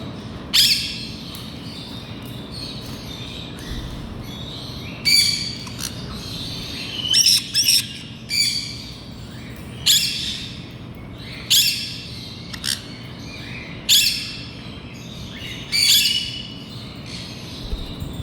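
Black-headed caique giving short, high-pitched squawks, about ten of them spaced a second or two apart, over a steady low hum.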